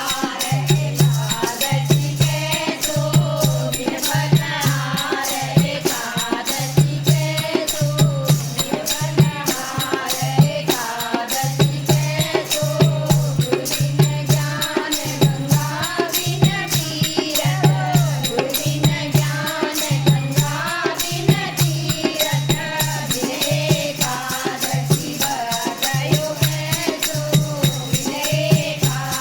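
Voices singing a Hindu devotional bhajan in kirtan style, with rattling hand percussion and a steady low beat about three times every two seconds.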